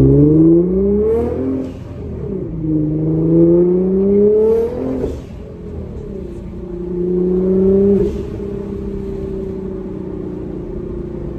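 Nissan GT-R's twin-turbo V6 heard from inside the cabin, accelerating hard through the gears: the revs climb three times, dropping at each upshift about two, five and eight seconds in, then settle to a steady cruise.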